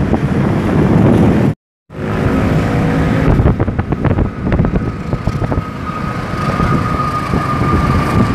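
Wind buffeting the microphone, then, after a brief dropout, a diesel-hauled container freight train passing: wheels clattering over the rails with a run of sharp clicks, and a steady high tone from the middle onward.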